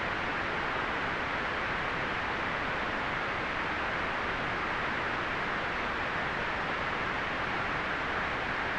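Steady synthetic white noise: an even, unchanging hiss, strongest in the upper middle range, with no breaks or events.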